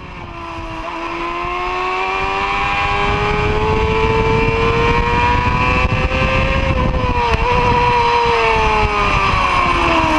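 Honda CBR250RR MC22's small inline-four engine running at high revs, its high-pitched note climbing slowly, dipping about seven seconds in and falling near the end, over a steady rushing noise. The sound swells in over the first few seconds.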